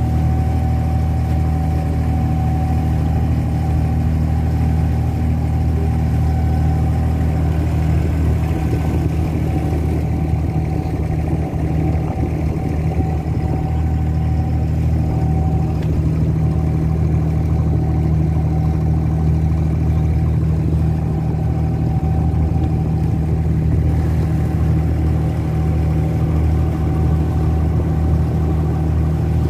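An abra water taxi's diesel engine running steadily under way, a low, even drone.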